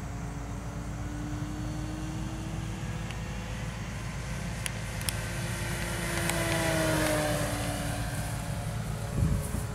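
Electric RC model plane's E-flite Power 40 motor and 13x10 propeller whining as it passes; the pitch falls as it goes by, loudest about seven seconds in. A brief low thump near the end.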